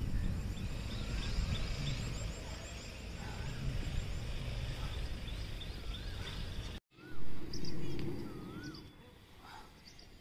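Outdoor ambience: a steady low rumble of wind on the microphone, with birds calling in rising-and-falling whistled notes every second or two. The sound cuts off for a moment about seven seconds in, then a brief louder sound follows.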